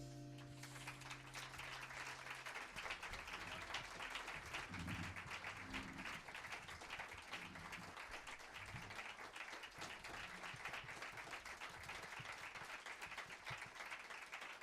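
Audience applauding steadily after a jazz number, while the band's last low note dies away in the first couple of seconds.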